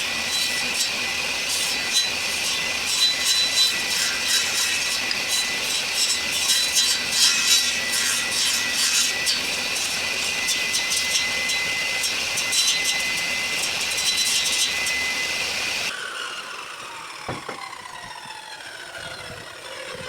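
Power saw blade cutting through wood with a steady high whine and rasping, as a circle is cut out. About four seconds before the end the cutting stops, and the saw's motor coasts down with a falling whine.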